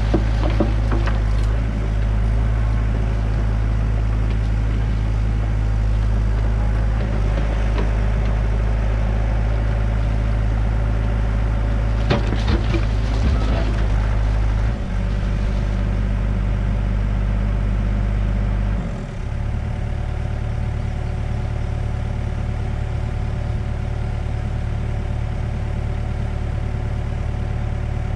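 Hyundai excavator's diesel engine running steadily under hydraulic load as the bucket digs, with scraping knocks of the bucket on soil and stone just after the start and again about twelve seconds in. About nineteen seconds in the engine note drops and runs on lower.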